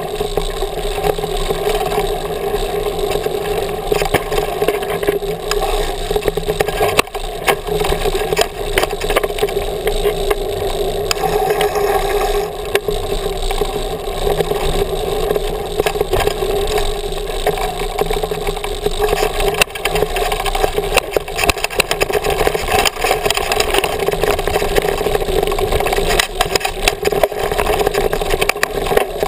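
Mountain bike riding down a dirt trail, heard from a handlebar-mounted GoPro: a steady rumble of wind and tyres on the ground, with frequent knocks and rattles as the bike bumps over the trail.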